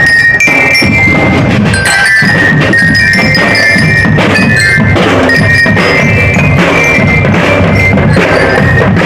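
Loud percussion-led parade music: steady drum beats under a bright, bell-like melody of short held notes.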